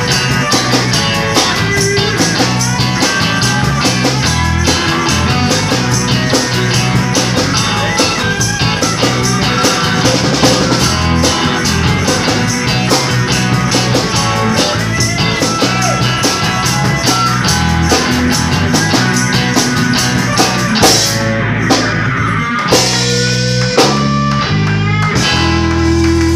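Live band music with electric guitar, electric bass and drum kit, the guitar playing lead over a steady beat with cymbals. About twenty seconds in the cymbals stop and the band plays short hits, ending on a held note.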